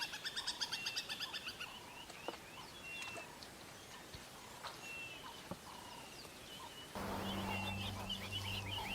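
Wild birds calling: a quick run of repeated chirps at the start, then scattered short calls and whistles. About seven seconds in, the background changes to a louder one with a steady low hum under more bird calls.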